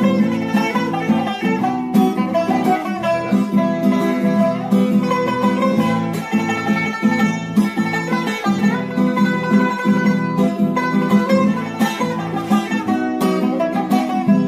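Background music: an instrumental passage on plucked strings, without singing.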